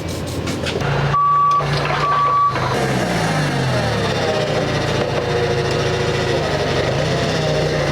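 Forklift engine running with its reverse alarm beeping twice about a second in, the engine pitch then shifting as the machine is worked. The transmission has been put in reverse while it is checked for slipping.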